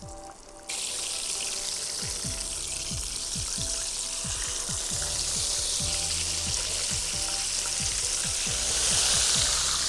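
Battered flounder fillets frying in hot oil in a cast iron skillet: a steady sizzle that starts suddenly about a second in and swells louder near the end.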